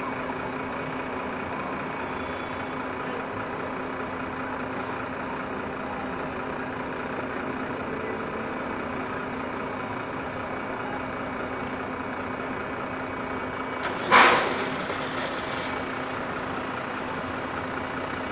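City bus idling at a stop with a steady engine hum. About fourteen seconds in, a loud sudden hiss of compressed air released from the bus's pneumatic system, fading out over about a second and a half.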